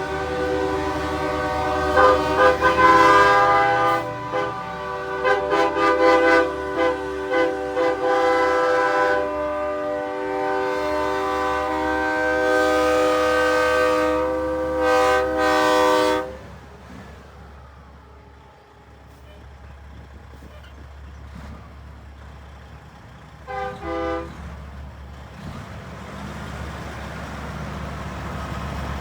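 Air-operated train horns on semi trucks blowing long chords, several horns overlapping with short breaks, then cutting off about sixteen seconds in. Truck engines rumble underneath, and one short horn blast sounds later.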